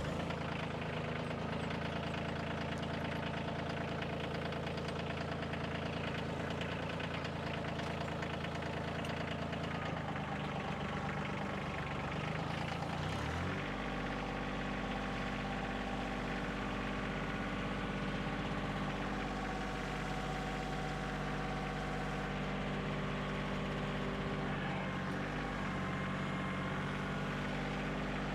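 Kioti CK2610 compact tractor's three-cylinder diesel engine running steadily while the grapple handles a log; its engine speed shifts about halfway through.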